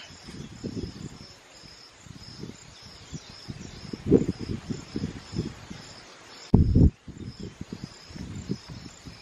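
An insect chirping steadily in a high, regular pulse, about two chirps a second. Under it come irregular low rumbles and thumps on the microphone, the loudest a short burst about six and a half seconds in.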